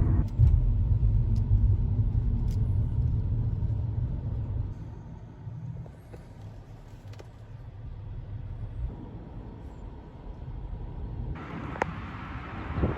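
Car in motion: a steady low road and engine rumble, which eases off about four to five seconds in.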